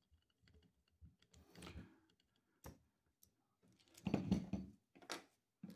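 Faint scattered clicks and scrapes of a screwdriver backing out the last Torx screw on the plastic battery latch trim cover of a Baofeng UV-5 radio, then louder plastic clatter about four seconds in as the trim cover is lifted off the radio.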